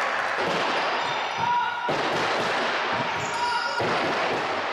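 Game sound in a sports hall: a ball bouncing on the court amid the voices of players and crowd, with two short squeaks.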